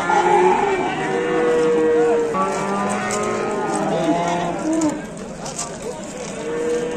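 Cattle mooing: several long, steady calls overlapping one another, one drawn-out moo ending about two and a half seconds in and another starting near the end.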